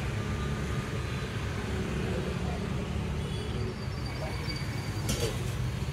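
Steady low background rumble, with a short hiss about five seconds in.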